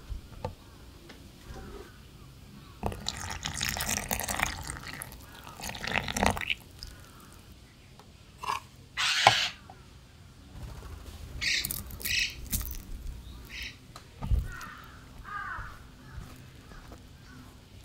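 Spatula stirring and scraping dry flour mix in a glass dish, in separate bouts of rustling and scraping with a few short sharp scrapes and a knock against the dish. Squeaks of the spatula rubbing on the glass can be heard.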